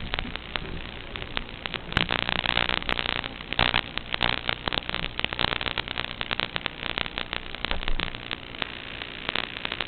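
Static from an analog FPV video link's audio channel as recorded by the goggles' DVR: dense crackling and hiss over a faint low hum, with louder bursts around two and four seconds in.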